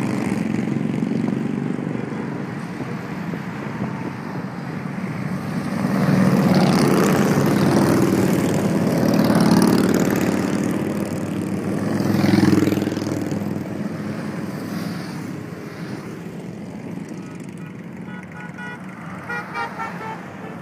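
A line of motorcycles passes close by, their engines swelling to a peak twice and then fading, with cars and pickups following. A few short horn toots sound near the end.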